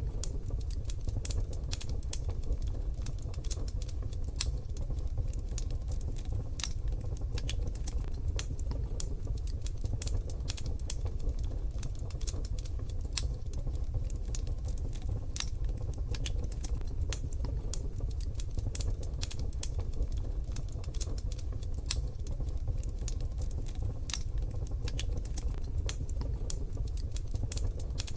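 Wood fire crackling in a wood-burning stove: dense, irregular sharp pops and clicks over a low steady rumble of the burning fire.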